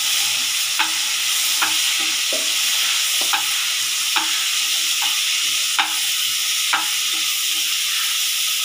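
Boiled chickpeas sizzling in hot tempered oil in a pan while a steel spatula stirs them, the spatula clicking against the pan about once a second.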